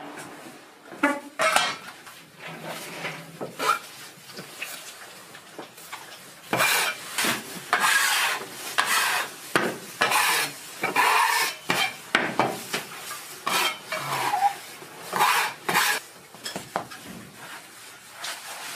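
A metal bench scraper chopping through dough and knocking and scraping on the work table: a run of sharp clacks and scrapes, busiest in the middle stretch.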